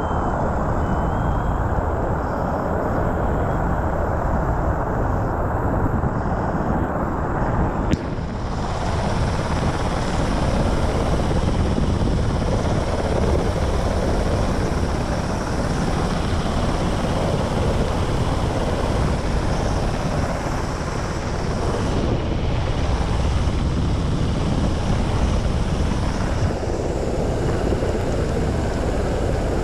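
UH-60 Black Hawk helicopter in flight: a steady, dense rush of rotor noise, heard from a rope slung beneath the aircraft. The noise dips briefly about eight seconds in.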